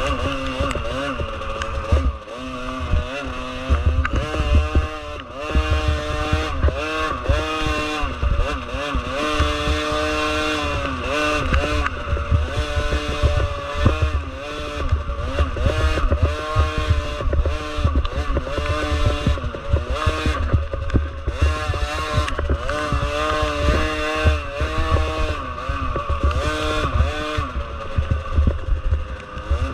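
Small 50cc youth motocross bike engines racing, their pitch rising and falling again and again as riders twist the throttle and let off, over a constant low rumble.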